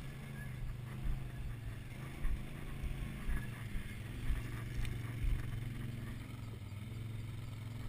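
ATV engine idling steadily as a low, even hum, with irregular low buffeting on the microphone.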